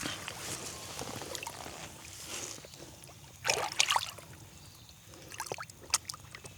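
Creek water splashing and trickling, with a louder cluster of splashes about three and a half seconds in and a sharper one near the end.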